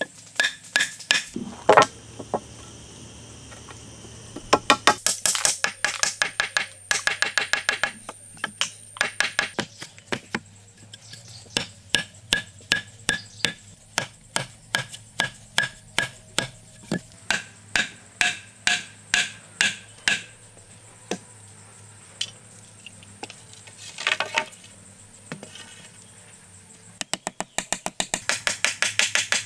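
A wooden mallet repeatedly striking wood: hollow knocks in quick runs as a post and then a small wooden peg are driven in, with a lull of a few scattered blows before a fast run of taps near the end.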